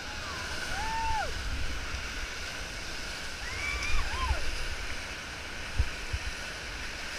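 Whitewater of a river rapid rushing steadily around an inflatable raft, with short shouts from the paddling crew about a second in and again around four seconds. A few low thumps hit the microphone.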